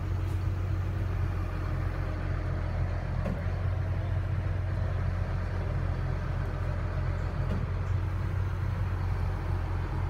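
Engine of a boom-equipped bucket truck running steadily: a low, even rumble that holds throughout.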